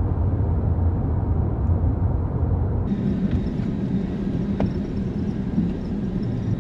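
Steady road and engine noise inside a moving car on snow-covered roads, a low rumble. About three seconds in it changes abruptly to a different, higher hum, where one drive clip is cut to another.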